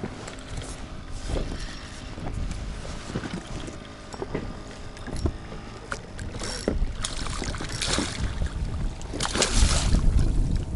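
Scattered knocks and clicks of handling in a small fishing boat, with rustling noise and rumble that swell in bursts in the second half.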